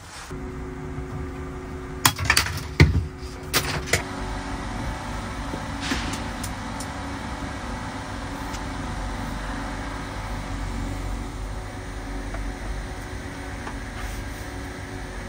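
Several sharp knocks of wooden trim strips being handled and set against a plywood cabinet, clustered about two to four seconds in, over a steady low mechanical hum that runs on afterwards.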